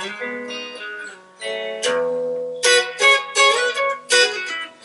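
Fender 1956 limited-edition roasted-ash Stratocaster played clean on its neck single-coil pickup through an amplifier: a short phrase of picked notes and chords with a chimey, articulate tone, the notes coming quicker in the second half.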